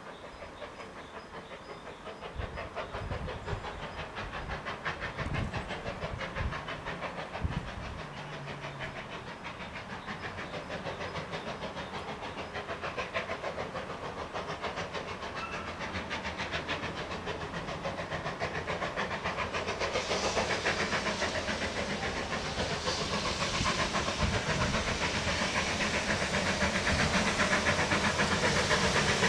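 Steam locomotive working a train toward the listener, its exhaust beating in a quick regular rhythm with a hiss of steam, growing steadily louder and brighter over the last ten seconds as it draws near.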